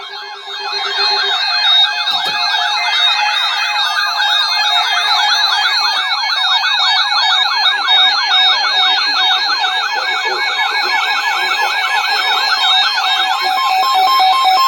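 Weather radio emergency alert signal: a loud, siren-like warbling tone that sweeps up and down several times a second. A steady tone joins it near the end.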